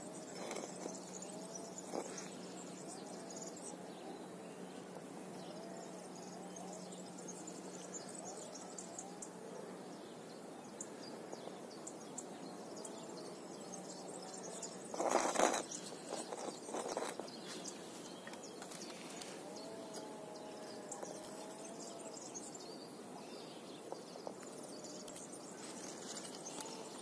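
Faint outdoor background noise with a steady low hum and a few faint calls. About halfway through there is a short, louder rustle of handling close to the microphone, and a smaller one soon after.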